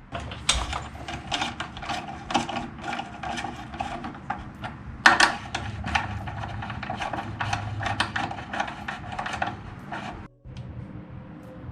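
Hand tools and metal motorcycle brake parts being handled in a workshop: an irregular run of clicks, scrapes and knocks, with one louder knock about five seconds in. Near the end the handling noise cuts off and a low steady hum follows.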